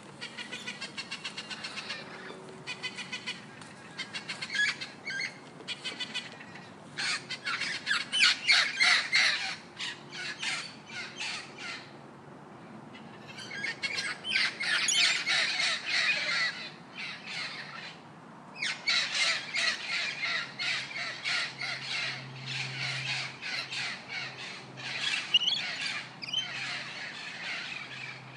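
Birds calling in long bouts of rapid, repeated calls, with short lulls between the bouts.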